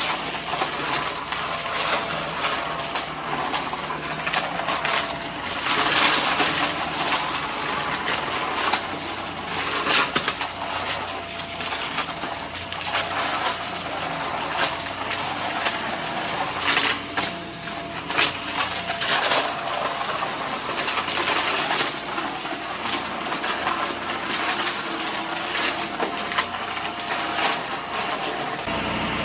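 Vacuum cleaner sucking up a loose, messy test spill of small hard debris, with many pieces crackling and rattling through the nozzle over the steady suction noise.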